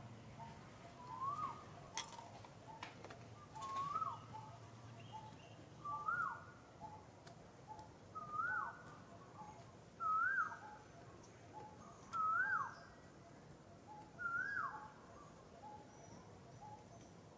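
A bird calling over and over: a whistled note that rises and then drops sharply, seven times about two seconds apart, creeping slightly higher in pitch as the series goes on. Fainter short notes from another bird repeat quickly behind it.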